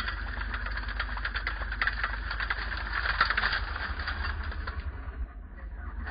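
Model Bergepanther recovery tank driving under its own power: a steady low engine drone under rapid clicking and clatter from the running gear and tracks. The clatter eases briefly about five seconds in as the vehicle slows, then picks up again.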